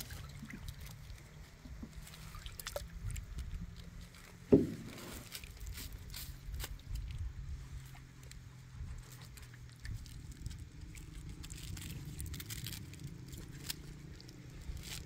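Rope and a fishing net hauled up out of water by hand, with water sloshing and small clicks of handling. A single sharp knock about four and a half seconds in is the loudest sound, and a low steady hum runs underneath.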